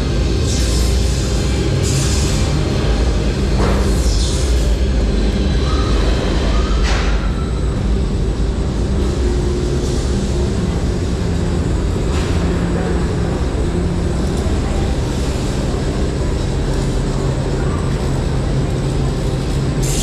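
Themed ride music playing in the coaster's indoor show section, over the steady low rumble of a Mack Rides coaster train rolling slowly through it.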